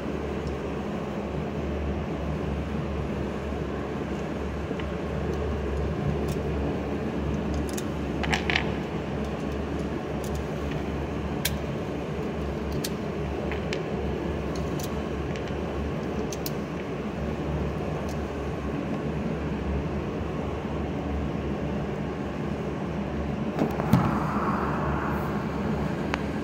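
A steady low mechanical hum fills the booth, with a series of light sharp clicks scattered through the middle of the stretch as pistol cartridges are handled and loaded by hand.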